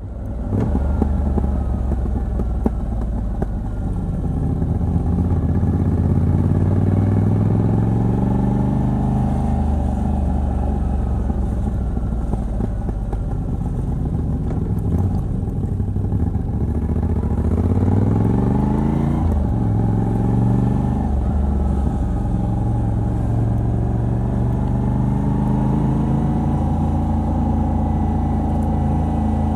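Moto Guzzi V85TT's air-cooled V-twin, fitted with a decat pipe on the stock exhaust, running under way. Its pitch climbs in several sweeps as it pulls up through the gears, drops sharply about two-thirds of the way through, then holds steady at a cruise.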